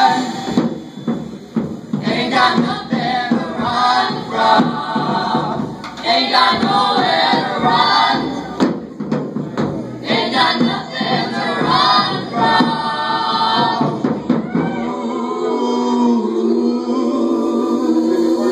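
Several voices singing together in a live folk band with banjo, fiddle and cello, in the song's final refrain. About fifteen seconds in, the singing settles into a long held chord.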